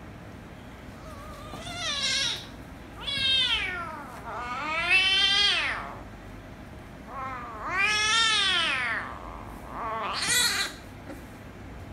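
A kitten meowing loudly about five times in a row, some meows long and drawn out, each rising then falling in pitch.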